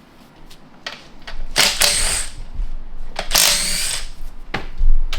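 A power tool run in three short bursts, each under a second, with a couple of sharp metal knocks between them.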